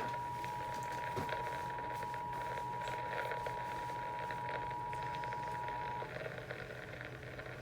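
Emergency Alert System attention signal: the steady two-tone 853 and 960 Hz alarm, broadcast over the radio with a hiss behind it. The tone cuts off about six seconds in, leaving only the broadcast hiss.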